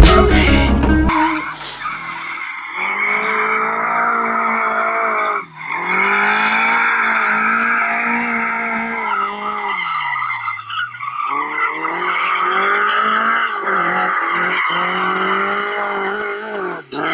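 Music cuts off about a second in; then a Lada rally car's engine runs hard under load while its tyres squeal and scrub as it slides sideways through a tyre-marked course. The engine note dips and recovers twice as the driver lifts off and gets back on the throttle.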